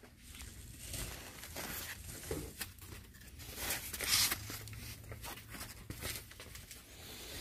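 Foam packing sheets and plastic wrap rustling and crinkling as they are handled in a cardboard box, in irregular bursts with the loudest rustle about four seconds in.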